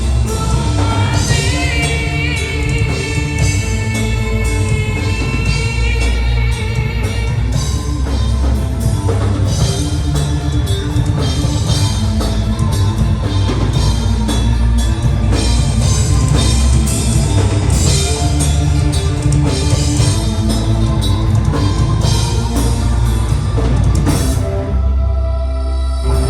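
A gothic metal band playing live, with a drum kit, guitars and a singer's voice. The cymbals and high end drop out briefly near the end, leaving the low instruments.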